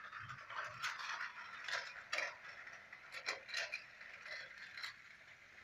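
Battery-powered plastic toy train running on plastic track: a steady high motor whine with a string of sharp plastic clicks and clatters.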